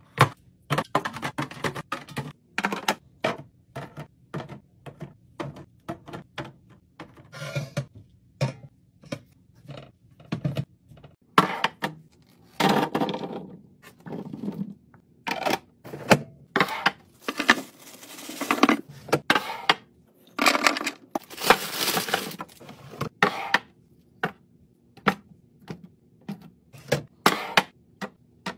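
Containers and packaging being handled while a fridge is restocked: a quick run of clicks, clacks and knocks as items are set down and lids snapped, with a few longer stretches of rustling or tearing packaging.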